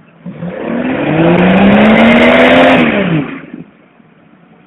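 A Jeep Cherokee's engine revving hard for about three seconds, pulling up a steep rocky slope. Its pitch rises and then falls away, under a loud rushing noise.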